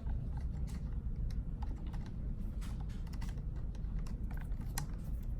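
Scattered light clicks and taps of small plastic and metal RC-truck parts, screws and tools being handled on a work surface, over a steady low rumble.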